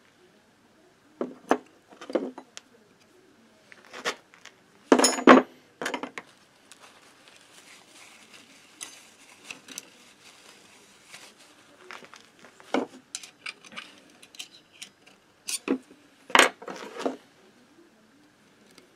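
Hand tools and small steel parts clinking and knocking against a moped's metal clutch drum and the workbench: scattered metallic taps and clatters, the loudest about five seconds in and another cluster near the end. A soft rag-rubbing sound runs through the middle stretch.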